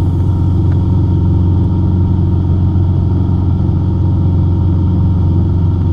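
Cessna 150's four-cylinder Continental O-200 engine and propeller droning steadily in level flight.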